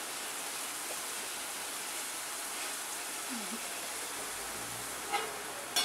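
Boondi, drops of gram-flour batter, frying in hot oil in a kadai: a steady hissing sizzle as fresh batter drips into the oil. A couple of sharp clicks near the end.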